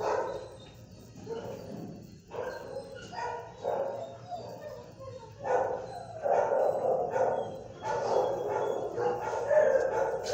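Dogs barking in a shelter kennel block, repeated barks that come more often and louder in the second half.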